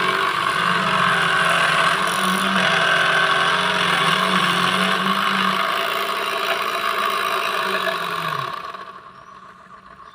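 Homemade mini cutting machine, a salvaged 12-volt DC motor driving a small cutting blade, runs with a steady whine while a PVC plate is fed into it, and the cut adds a hissing rasp. About eight and a half seconds in, the motor winds down, its pitch falling, and the sound fades to a low level.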